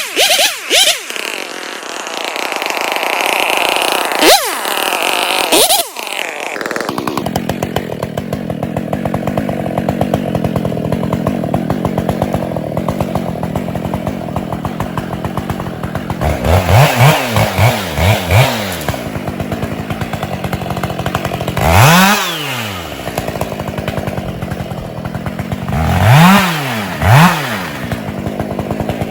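Husqvarna 572 XP two-stroke chainsaw running. Quick revs up and back down in the first few seconds, then it idles steadily from about seven seconds in, with bursts of short throttle revs a few times after about sixteen seconds.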